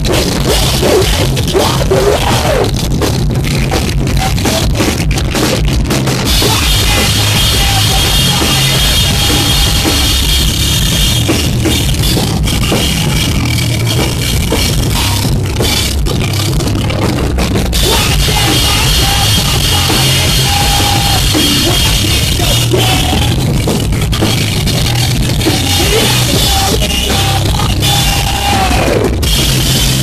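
Live rock band playing loud, a drum kit driving the song under electric guitars, heard close to the stage.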